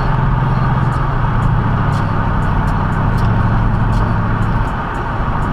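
Mercedes CLK 55 AMG's V8 engine heard from inside the cabin under way at speed, a loud steady drone with road noise, which eases off about four and a half seconds in.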